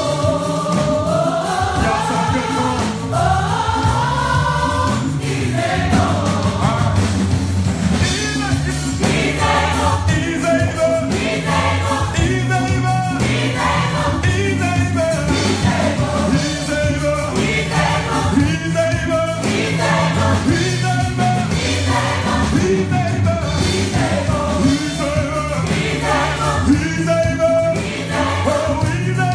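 Live gospel worship music: a lead singer and a group of backing singers sing together over a steady instrumental accompaniment.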